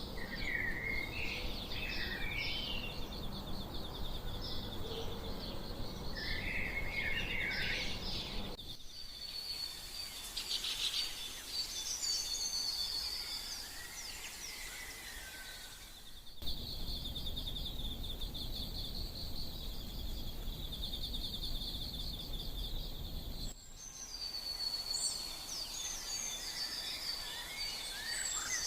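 Outdoor ambience of small birds chirping and twittering over a rapid insect trill and a low steady background hum. The mix changes abruptly about every seven to eight seconds.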